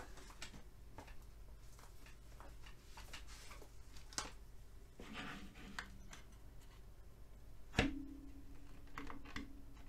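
Faint scattered clicks and handling noises, with one sharper knock nearly eight seconds in as a plastic spudger and the speaker's plastic housing are picked up.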